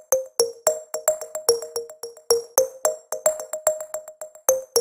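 Electronic background music: synthesizer keyboard playing short, struck notes in a quick repeating pattern, about three or four a second.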